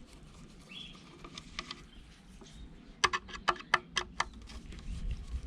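A quick run of about eight sharp clicks and taps about three seconds in, with fainter ticks before and a low bump near the end: small parts being handled and worked loose while taking apart a Bluetooth speaker.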